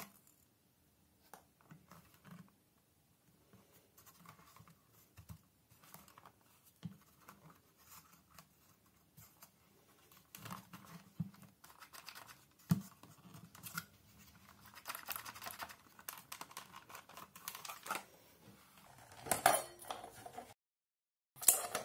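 Hard plastic housing of a handheld rechargeable spotlight being handled and turned over: scattered light scrapes, rubs and clicks, busier through the middle. Near the end the sound briefly drops to dead silence, then comes a sharp click.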